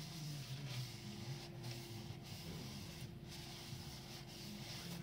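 Blue paper shop towel rubbing around the inside of a freshly honed engine cylinder bore, wiping out honing residue: a faint, uneven rubbing hiss with short breaks between strokes, over a steady low hum.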